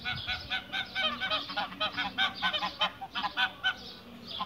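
Domestic geese honking: a rapid run of short, repeated honks that dies down shortly before the end.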